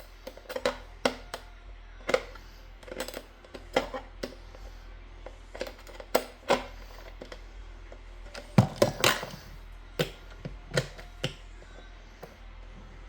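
Irregular sharp clicks and knocks of small hard objects being handled, with a cluster of louder knocks about nine seconds in.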